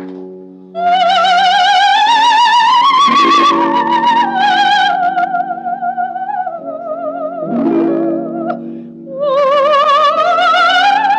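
Coloratura soprano singing long, slowly rising sustained notes with a wide, regular vibrato over a sustained chordal accompaniment. The voice enters about a second in, drops back briefly around the middle, then comes in again on another long rising note.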